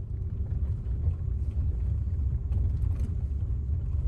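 Steady low rumble of a vehicle driving along a dirt track, heard from inside the cab, with faint scattered clicks and rattles over it.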